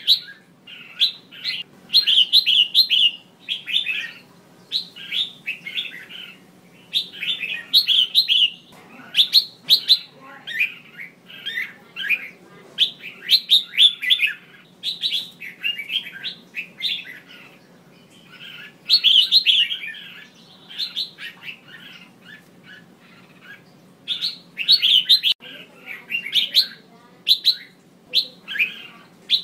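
Female red-whiskered bulbul calling: short, quick bursts of chirping notes, one phrase every second or so, with a quieter spell about three quarters of the way through.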